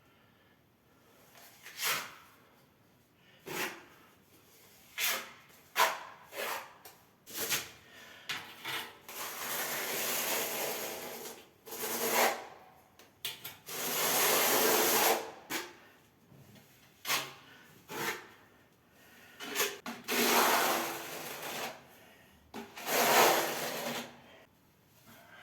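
Hand tools working on hard building surfaces during tiling: several scraping or rubbing strokes of one to two seconds each, between scattered short knocks and clicks.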